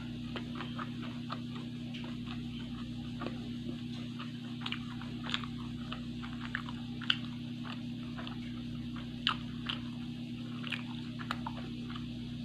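A person chewing a mouthful of fried risole and green chili close to the microphone: irregular soft mouth clicks and smacks, a few sharper ones scattered through, over a steady low hum.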